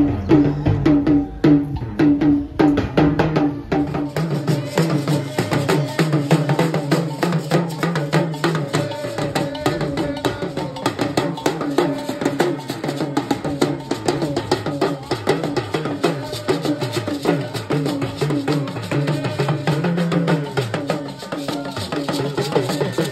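Background music with a busy percussive beat over pitched instruments.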